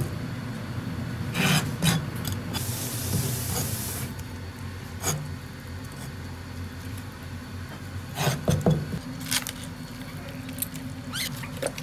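A kitchen knife cutting and scraping on a cutting board, then scraping along a fish's skin, with scattered sharp taps of the blade. A short hiss comes about three seconds in.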